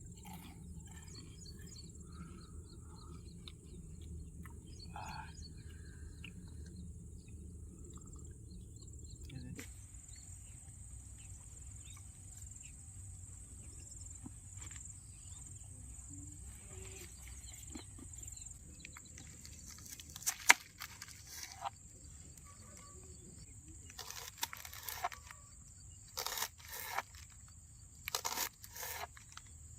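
Outdoor ambience with a steady, high, faintly pulsing insect drone. A low rumble runs for the first ten seconds or so and then stops. In the second half there are scattered short crunching and scraping handling noises.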